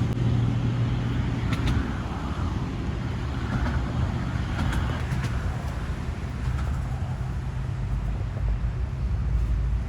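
Motor vehicle engine running with a steady low hum under general road-traffic noise. The hum is strongest for the first couple of seconds and then eases, and a deeper rumble builds near the end.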